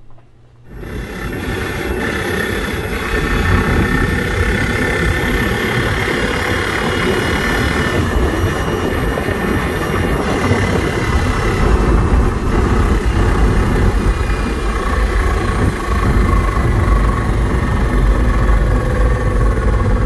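Rear-mounted electric drive motor and transaxle of a 2015 Smart electric car running, starting within the first second: a steady whine over a heavy, rough low thumping. It is the torque-related noise that new CV axles did not cure, which the owner suspects may be bearings.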